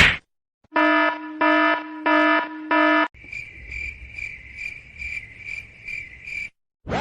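Sound effects from a free sound-effects pack, played one after another. A harsh buzzer sounds four times. Then a high electronic chirp repeats about two to three times a second for a few seconds, and a sweeping whoosh begins at the very end.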